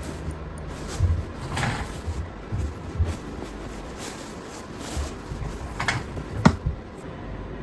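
Handling noises: a few dull knocks, a brief swish about two seconds in, and two sharp clicks near the end.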